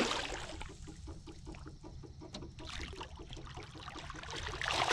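A hooked fish splashing at the water's surface right at the start, then a fishing reel ticking rapidly and evenly as the line is reeled in, and the fish thrashing at the surface again beside the boat near the end.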